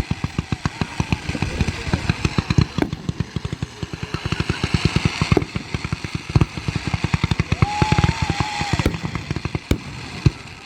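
A dense barrage of fireworks going off, many booms a second over a haze of crackling, thinning out near the end.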